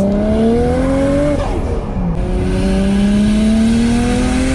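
Nissan RB26 twin-turbo straight-six accelerating hard, its pitch climbing through one gear, dropping at an upshift about one and a half seconds in, then climbing again through the next.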